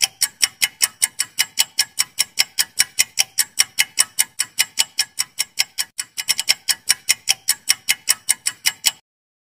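Clock-ticking sound effect for a quiz countdown timer: sharp, even ticks about four to five a second, bunching briefly a little past the middle and stopping abruptly near the end.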